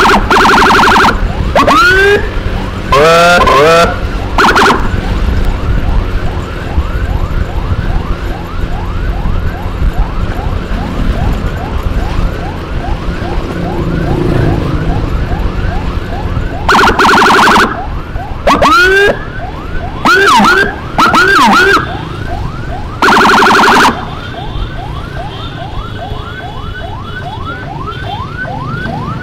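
Electronic emergency siren on a fast yelp, rising about three times a second. It is broken by several loud horn blasts and a few quick upward whoops. Vehicle engine noise runs underneath.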